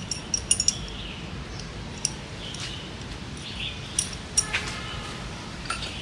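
A few light clinks and taps, a quick cluster about half a second in and single ones near 2 and 4 seconds, over a steady low rumble.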